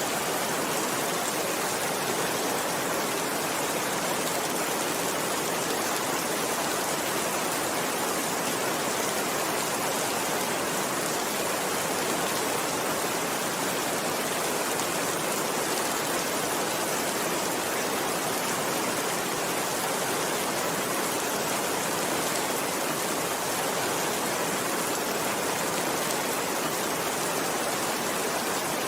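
Steady rainfall: an even, unbroken hiss of rain at a constant level.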